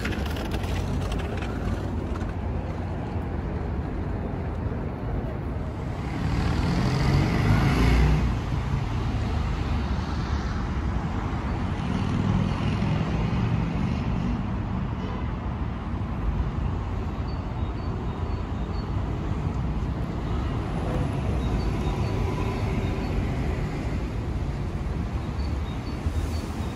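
City traffic noise: a steady hum of passing cars, with one vehicle going by louder about six to eight seconds in and a smaller swell a few seconds later.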